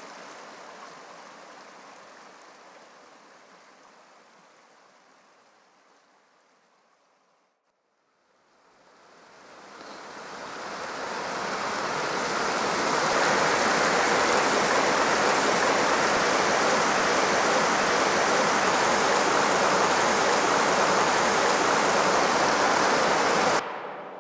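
Creek water rushing over rocks. It fades down to near silence, swells back up to a steady loud rush, and cuts off suddenly near the end.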